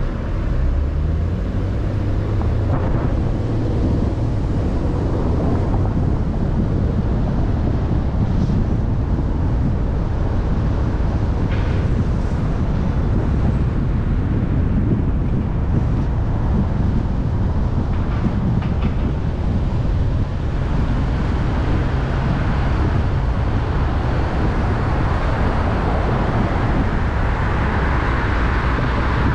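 Car pulling away from a standstill, its engine note rising over the first couple of seconds, then steady engine, tyre and wind noise as it drives on.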